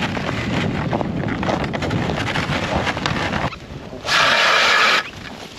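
Footsteps crunching on snow and a loaded sled dragging over it, with wind buffeting the microphone. About four seconds in, a loud one-second hiss starts and cuts off abruptly.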